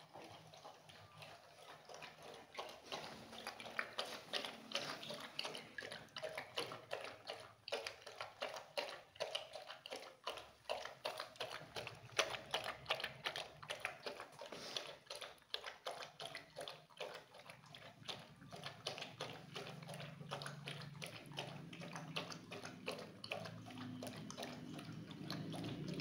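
German shepherd lapping milk from a stainless steel bowl, a quick, steady run of wet laps several times a second.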